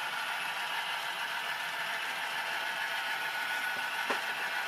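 Model trains running on the layout: a steady whir and rattle of small motors and wheels on track, with a single sharp click about four seconds in.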